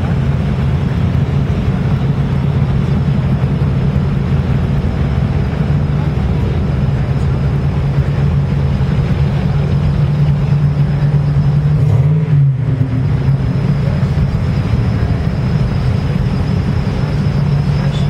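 Large American cars, vans and SUVs rolling slowly past in a line, their engines running at low revs with a steady low hum. About twelve seconds in, one engine's pitch rises briefly and drops back.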